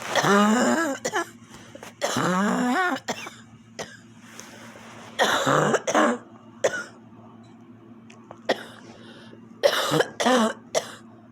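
A person's rough, harsh coughing in four separate fits, near the start, about two seconds in, about five seconds in and about ten seconds in, with a few short throat sounds between.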